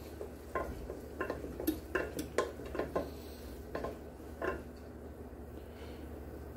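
A spatula stirring butter and spices in a small stainless steel saucepan, knocking and scraping against the pan's sides in irregular strokes until about four and a half seconds in, then stopping. A low steady hum runs underneath.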